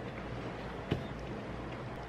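Quiet room tone with a low steady hum, and one faint click about a second in.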